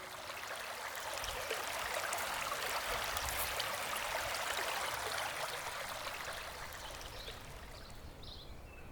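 Running water, like a stream, with a steady hiss that swells to its loudest midway and then fades. Birds chirp near the end.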